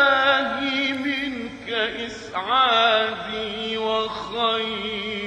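A man's solo voice chanting an Arabic devotional nasheed, drawing out long ornamented notes with a wavering pitch. There are two sung phrases, with a brief break about two seconds in.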